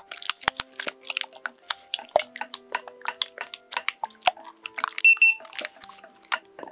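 Kitchen utensils clicking, tapping and clinking against a bowl in quick, irregular strokes, with one short ringing clink about five seconds in, over soft background music.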